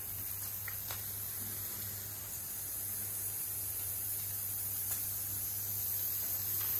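Bialetti moka pot on an induction hob hissing steadily as the water heats, slowly getting louder, over a low steady hum.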